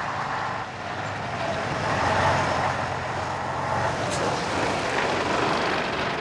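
A MAN 19.361 lorry's underfloor diesel engine runs as the truck drives past close by, its rumble swelling about two seconds in.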